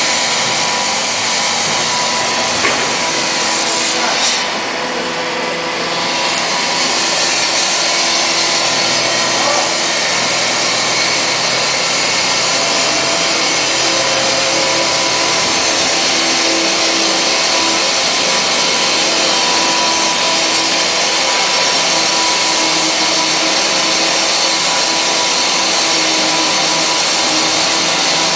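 A machine running steadily and loudly, with a strong hiss and a few faint steady tones under it; the level dips briefly about four seconds in.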